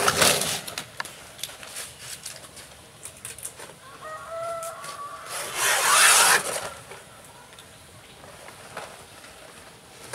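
Large fresh banana leaves rustling and crackling as they are cut and handled with a machete, in two loud swishes, at the start and about six seconds in, with small snaps between. A chicken clucks briefly around four seconds in.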